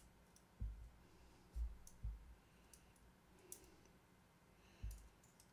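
Faint handling sounds as a pocket clip is fitted onto a folding knife by hand: four soft low thumps and a couple of light, sharp clicks of small parts.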